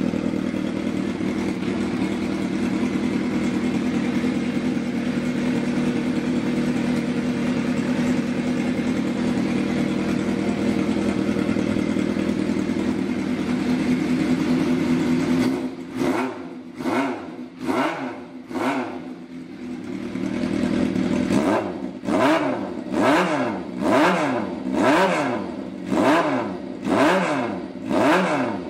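Kawasaki ZRX400's inline-four running through a PRM aftermarket muffler: it idles steadily, is blipped quickly several times about halfway through, then is revved in an even rhythm of about one rev a second.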